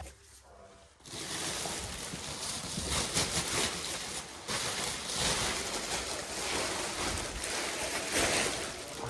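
Loose blown-in insulation being pulled out of an open wall cavity and packed into a bag: a rustling, scraping noise that starts about a second in and swells and eases in uneven waves.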